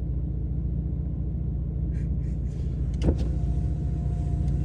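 Steady low rumble of road and engine noise inside a moving Ford F-150 pickup's cab, with a single knock about three seconds in.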